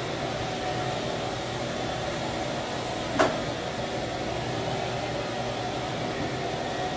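A steady mechanical hum with a hiss, like a fan or blower running, with one short sharp knock about three seconds in.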